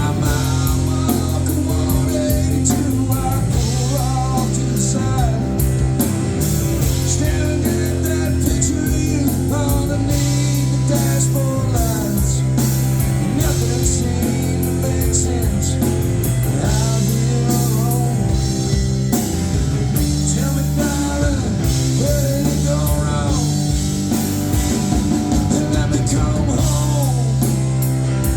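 Alt-country band playing live during an instrumental break: guitar over bass and drum kit, with the melody line bending up and down.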